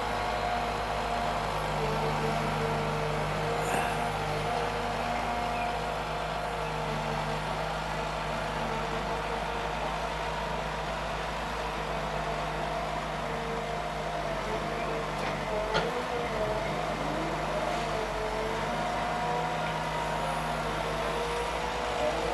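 Wheeled forestry harvester's engine running steadily under load, with a wavering whine as the crane boom swings. A single sharp knock about two-thirds of the way through.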